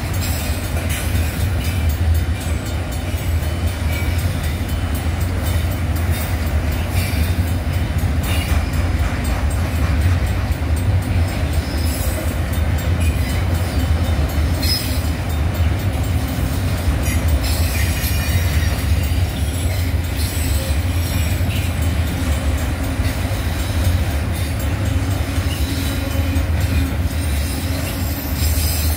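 CSX freight train of autorack cars rolling past a road crossing: a steady low rumble of steel wheels on rail, with occasional sharp clicks.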